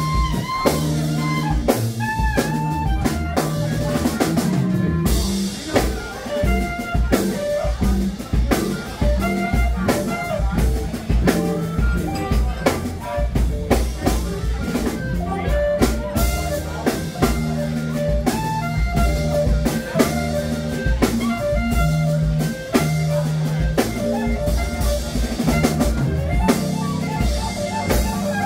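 Live small band playing: clarinet carrying a melody with bending, gliding notes over electric guitar, upright bass and drum kit.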